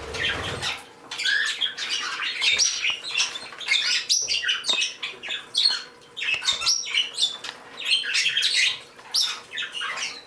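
A flock of small pet birds, parakeets and a canary among them, chirping and squawking without pause, with many short high calls overlapping one another.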